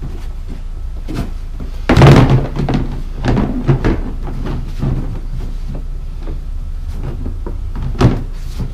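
Hollow thunks and knocks of a molded plastic sandbox lid being handled and set onto the sandbox: a loud clattering thunk about two seconds in, a few lighter knocks after it, and one more sharp knock near the end.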